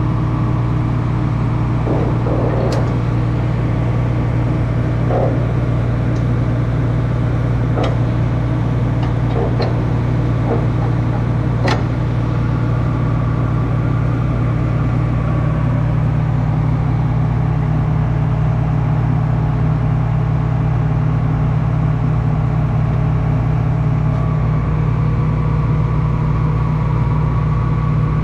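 A combine's engine running steadily at idle, with a few short sharp clicks and knocks in the first half.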